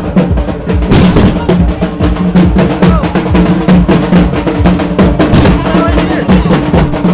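Dhak drums, the plume-topped Bengali festival drums, beaten loudly in a fast, dense rhythm, with a steady low tone underneath and crowd voices.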